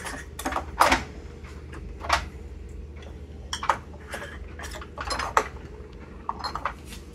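Glass bottles and caps clinking and knocking as they are handled and set down, in a handful of separate sharp clatters over a steady low hum.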